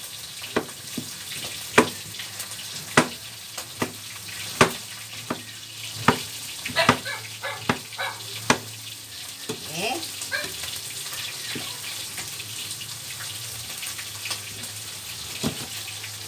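Kitchen knife chopping slices of patola (sponge gourd) against a cutting board: sharp chops at irregular intervals, coming thick for the first eight or nine seconds, then one more near the end. A steady hiss of fish frying in oil runs underneath.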